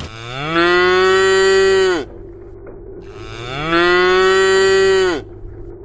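Ox mooing twice: two long calls of about two seconds each, each rising at the start, held steady, then dropping off at the end.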